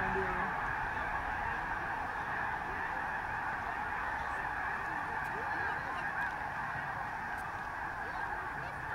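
A huge flock of thousands of waterbirds lifting off a marsh all at once, calling together in a dense, unbroken clamor of overlapping calls that slowly fades.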